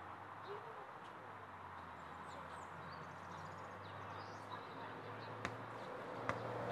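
Quiet outdoor background with a steady low hum and a few faint bird chirps. Near the end come two short knocks, as a football bounces on the rubber playground surface.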